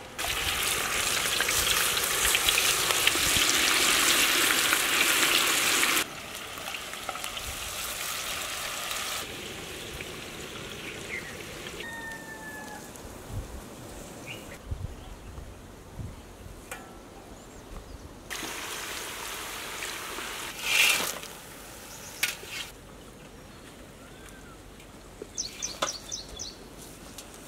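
Battered potato pieces deep-frying in a large wok of hot oil over a wood fire, sizzling loudly and steadily for the first six seconds. After that the sizzle is quieter and comes in several shorter stretches.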